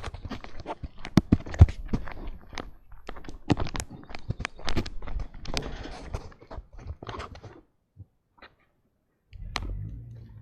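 A dog chewing: a run of irregular crunches and clicks that stops about eight seconds in, followed by a low steady hum near the end.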